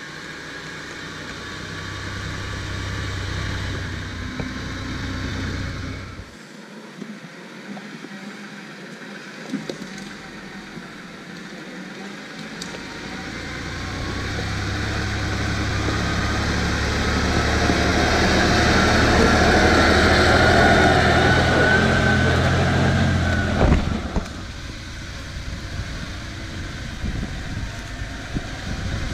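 Praga V3S truck's air-cooled Tatra 912 inline-six diesel running under load as the log-laden truck drives along a dirt forest track. It grows louder as the truck comes closer, is loudest about two-thirds of the way through, then drops off suddenly.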